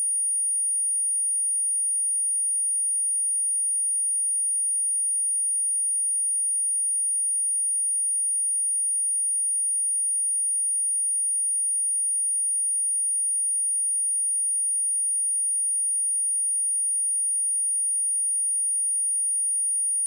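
Steady pure sine-wave test tone at 9555 Hz, a single high-pitched whistle held at a constant level, used to test or clear dust and water from a speaker.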